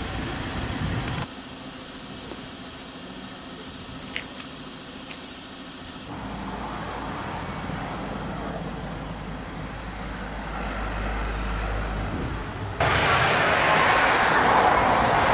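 Outdoor street background noise that changes abruptly several times: a quieter stretch with a couple of faint ticks, then a low steady rumble like traffic or an engine, then louder noise near the end.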